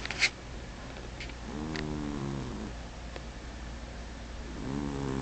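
Domestic cat snoring in its sleep: two snoring breaths about three seconds apart, each a low pitched drone lasting about a second. A sharp click right at the start is the loudest sound.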